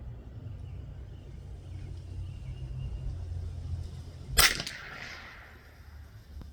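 A single .22 LR rifle shot from a Tikka T1X: one sharp crack about four and a half seconds in, followed by a short echo. Before it, low wind rumble on the microphone.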